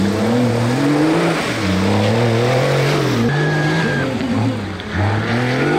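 Off-road race car engine running hard, its note repeatedly rising and dropping as the throttle is worked and gears change.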